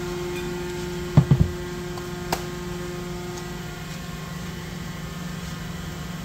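DMG Mori NTX 1000 CNC machine humming steadily. A higher tone in the hum dies away about four seconds in. A few short knocks come just over a second in, and a single click a little after two seconds.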